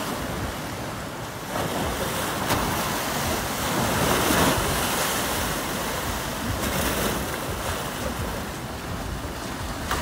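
Surf washing onto the shore with wind buffeting the microphone, a steady rush that swells to its loudest about four seconds in and then eases.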